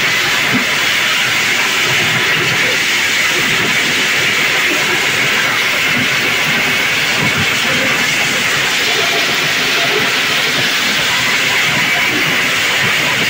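Engine-driven areca nut peeling machine running while it peels nuts: a loud, steady rushing hiss.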